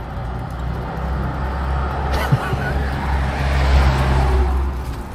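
A motor vehicle driving past: a low engine rumble with tyre noise that swells, loudest near four seconds in, then fades.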